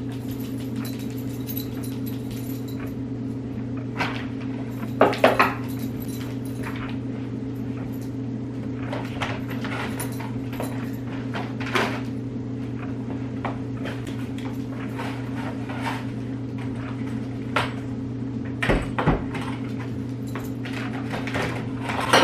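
Scattered knocks and clatters of household items being handled and set down in a closet, the loudest a quick cluster about five seconds in, over a steady low hum.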